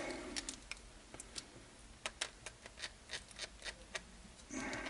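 Light, irregular clicks and taps of hard plastic RC buggy rear suspension parts (diff housing, shock tower, suspension arms) being handled and fitted together by hand, with a brief rustle near the end.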